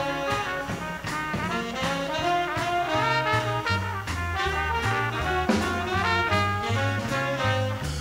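Live big band playing swing: a brass section with a trumpet lead over a bass line that steps note by note at an even walking pace.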